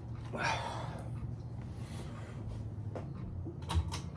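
Faint handling noises: a brief rustle about half a second in, then a light click and a sharper knock near the end, over a steady low hum.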